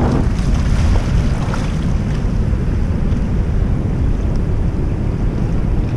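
Steady wind rumble buffeting the microphone, mixed with shallow surf washing over rocks.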